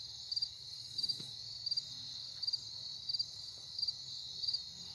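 Insects chirping outdoors: short pulsed high chirps repeating about every two-thirds of a second over a steady high-pitched trill.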